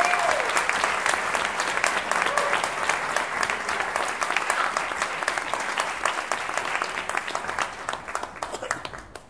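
Audience applauding in a concert hall, a dense steady clapping that thins out and dies away near the end.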